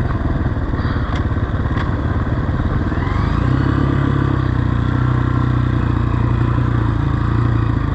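Honda CRF230F's single-cylinder four-stroke engine running as the dirt bike rides along the trail, its pitch rising about three seconds in as it picks up revs. Two sharp knocks sound within the first two seconds.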